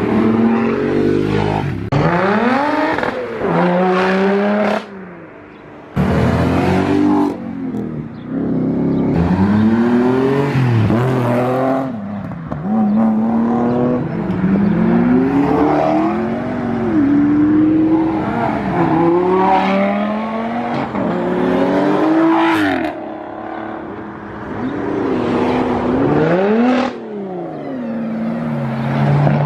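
Several performance cars accelerating hard one after another, each engine revving up and dropping back at the gear changes.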